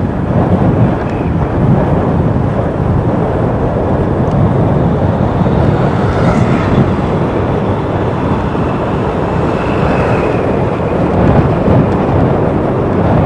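Steady rush of wind and road noise from a motorcycle moving at speed.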